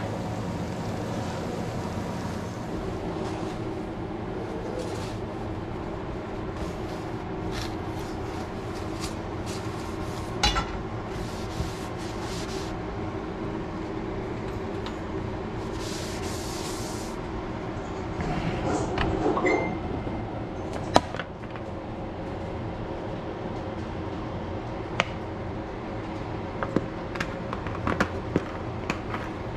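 An electric fan running with a steady hum made of several constant tones. Over it come scattered clicks and knocks of cookware being handled on the stove, a brief hiss about halfway through, and a sharp knock a few seconds later.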